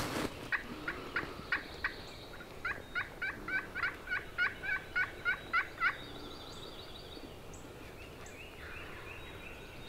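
Turkey yelping: a few short notes, then a run of about a dozen evenly spaced yelps at about three a second, stopping about six seconds in. Faint songbird chirps sound behind them.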